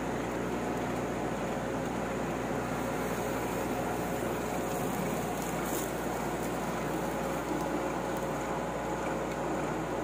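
Boom truck engine running steadily.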